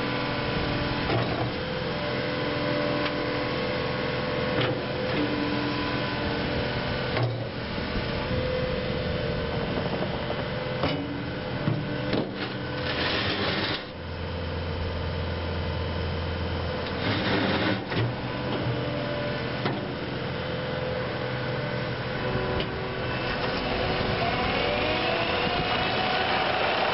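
Cat 279D compact track loader working: its diesel engine runs steadily under hydraulic load as the rubber tracks drive and the bucket is raised and lowered. Several short rushes of noise and a low hum midway, with pitch sweeps near the end as the machine turns close by.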